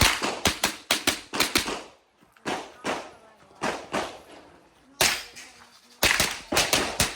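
Rapid .22 rimfire rifle fire: shots in quick strings of several a second, each with a short echo, broken by brief pauses about two and five seconds in.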